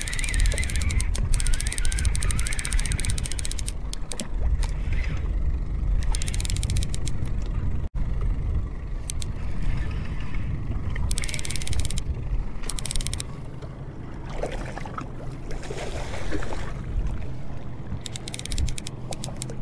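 Fishing reel being cranked in spells, its gears ticking rapidly, over a steady low rumble from the moving boat.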